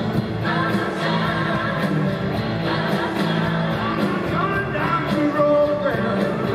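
Live blues-rock band playing at full volume: electric guitar, bass and a steady drum beat, with a man singing.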